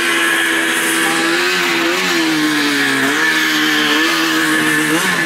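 Yamaha SRX 440 snowmobile's two-stroke engine running at a fast idle. Its pitch wavers, with small throttle blips about two, three and five seconds in.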